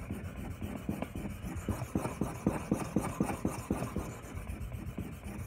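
Ontario RAT 2 knife's D2 steel blade stroked back and forth on a wet whetstone: a grinding rasp repeating about four strokes a second, as the second side of the edge is reprofiled toward an apex.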